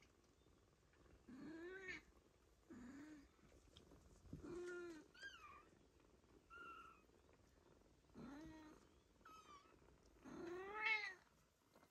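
Four-week-old Ragdoll kittens meowing: about seven short, high calls spaced a second or so apart, each rising and falling in pitch, the loudest near the end.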